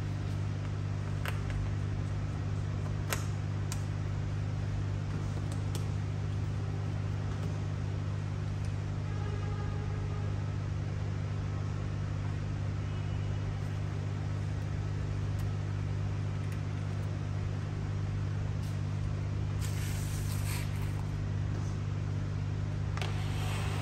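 Steady low machine hum, with a few faint clicks in the first several seconds and two short rustling noises, one about twenty seconds in and one near the end.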